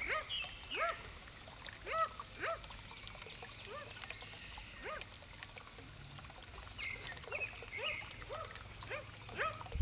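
Birds the uploader calls kowak kaok, a Papuan endemic, giving short calls over and over, each rising then falling in pitch, about two a second, with higher chirps mixed in at times.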